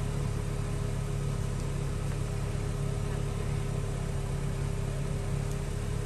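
A car engine idling steadily, a low even hum with no change in pitch.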